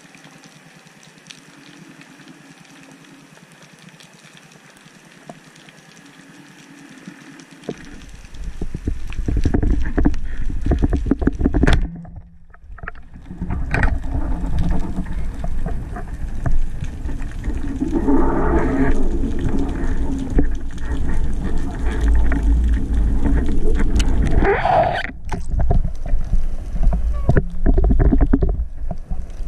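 Muffled underwater sound from a camera on a speargun. A faint steady hiss gives way, after a sharp click about eight seconds in, to loud low rumbling water noise and knocks as the gun is jerked about and the line to a speared bonito is hauled in.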